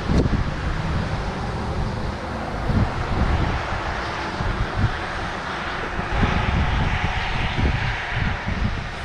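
Wind buffeting the microphone in gusts, with a steady rushing noise underneath that grows a little brighter after about six seconds.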